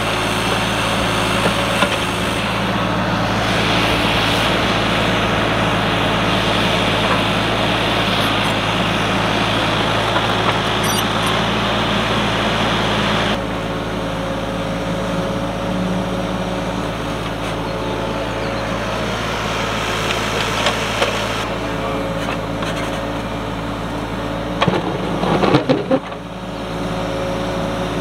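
Kubota mini excavator's diesel engine running steadily while the machine works, heavier and noisier for the first half, then easing off suddenly about thirteen seconds in. A few sharp knocks sound near the end.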